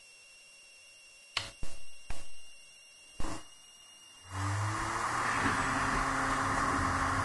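Computer CD burner drive: a few sharp knocks, then about four seconds in the disc spins up with a short rising whine into a steady loud whirring as it spins at speed to burn the CD.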